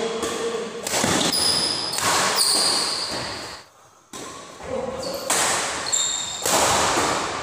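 Doubles badminton rally in an echoing hall: sharp racket strikes on the shuttlecock with long ringing reverberation, and high squeaks from shoes on the court floor. There is a brief lull a little past halfway.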